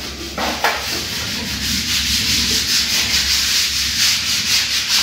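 A steady, scratchy rubbing noise that pulses quickly and evenly, several times a second, over a low steady hum.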